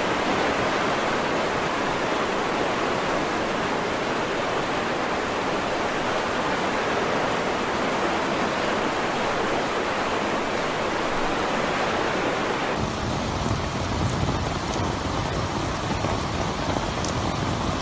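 Rushing muddy floodwater: a fast torrent surging past a railing, heard as a dense, steady roar of water. About two-thirds of the way through it changes to a slightly different, thinner water-and-rain noise.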